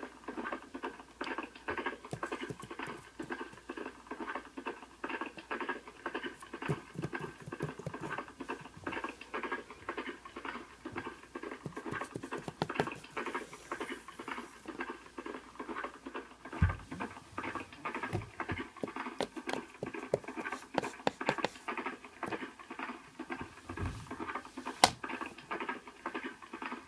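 Pencil scratching on paper in quick, continuous strokes as a line drawing is made, with a couple of dull knocks about two-thirds of the way through.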